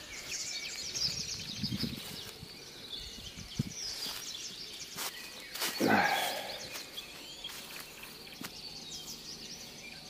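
A flock of small songbirds calling with many short, high chirps, over soft rustling of footsteps in dry fallen leaves. About six seconds in comes one louder, short falling sound.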